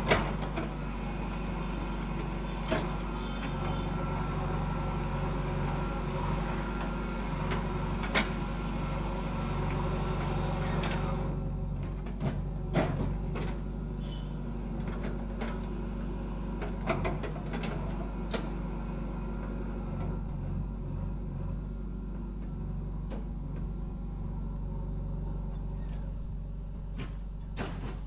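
JCB backhoe loader's diesel engine running steadily under digging load, with scattered sharp knocks and clanks as the backhoe bucket works the soil and stones.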